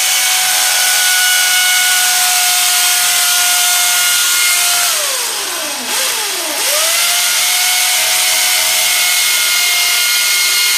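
Electric power drill boring through a wall, its motor whining at a steady pitch over loud drilling noise. About five seconds in it winds down, is restarted, dips once more, then spins back up and runs steadily.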